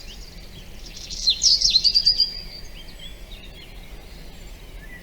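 Wild songbirds singing and chirping, with a loud run of quick chirps and a short held whistle from about a second in, then softer scattered calls over a faint steady low background noise.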